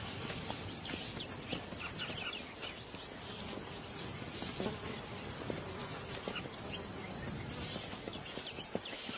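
Insects chirping in a dense, steady chorus of many short, high-pitched chirps: a wild bush soundscape with no single loud event.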